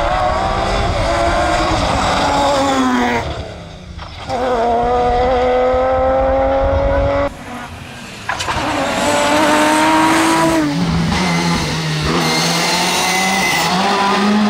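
Rally car engine at full throttle on a tarmac stage, the pitch climbing hard several times. Twice the sound drops away sharply as the driver lifts off for a corner, then climbs again. Near the end a steadier engine note follows.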